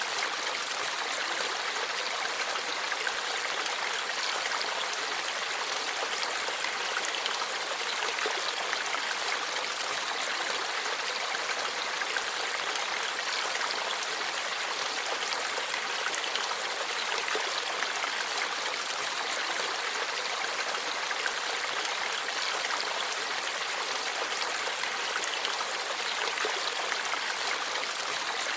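Forest stream flowing: a steady, even rush of running water that does not change.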